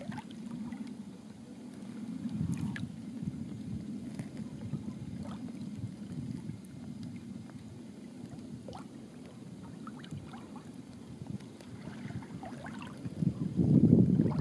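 Water rushing and gurgling along the hull of a sailing canoe under way, with faint splashes. It grows louder about a second before the end.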